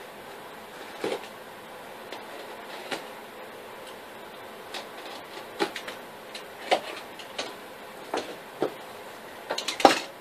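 Irregular taps, clicks and knocks from handling cardboard pieces and tools while mocking up a fan frame, with a quick cluster of louder knocks near the end, over a steady background hiss.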